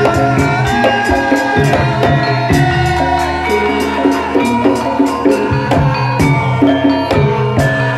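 Live Javanese gamelan-style ensemble playing an instrumental passage: melodic metal percussion over a bass line, with a fast, even ticking beat about four to five times a second.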